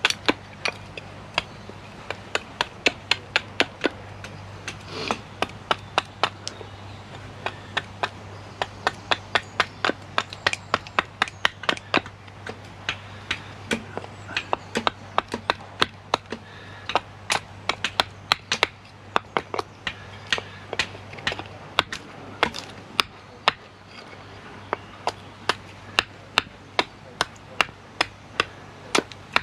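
Repeated sharp knocks of something striking wood, about two to three a second with brief pauses, like chopping or hammering, over a faint low steady hum.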